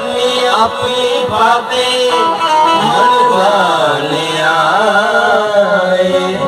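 Music for a stage dance: an ornamented melody gliding up and down over a held low note.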